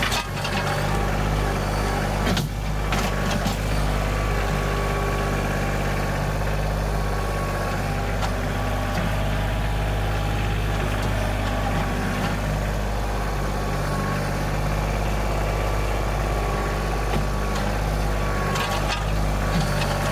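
Kioti compact tractor's diesel engine running steadily while the front loader works a stump bucket into the soil, with a clunk about two and a half seconds in.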